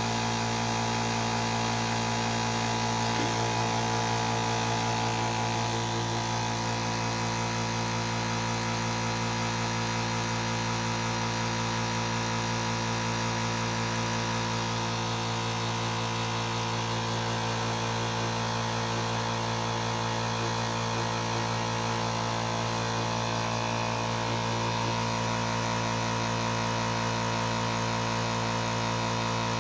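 VEVOR oil-free air compressor running steadily, its motor-driven pump refilling the tank and building the pressure back up after the tank was drawn down to about 50 psi.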